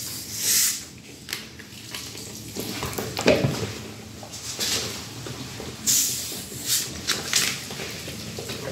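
Plastic bottles of mineral water being handled: irregular crinkling and rustling, broken by several short hisses.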